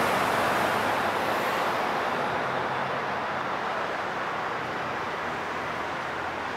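Road traffic noise with no crossing bell or rhythm. It is loudest at the start and eases off over the first three seconds as a vehicle goes by, then settles to a steady hum.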